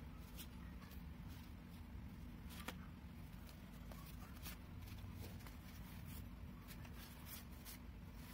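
Hands handling and flipping through a stack of postcard-sized picture cards: soft rustles and light clicks as the cards slide and tap against each other, one sharper click about two and a half seconds in, over a steady low hum.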